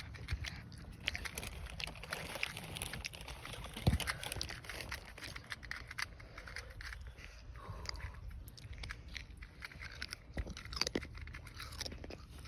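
A 2x2 Rubik's cube being turned quickly by hand: a fast, irregular run of small plastic clicks and clacks as the layers are twisted during a solve.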